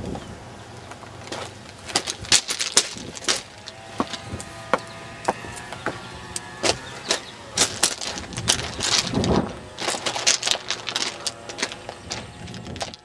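Footsteps crunching on railroad track ballast, an irregular run of sharp gravel crunches and scrapes mixed with camera handling knocks.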